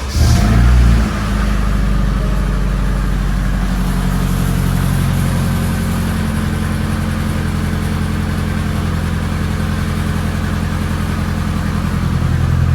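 Turbocharged Nissan KA24DET 2.4-litre four-cylinder firing up: it flares for about a second, then settles to a steady idle that gets a little louder near the end. This is a first start after a replacement turbo was fitted, left running to warm up.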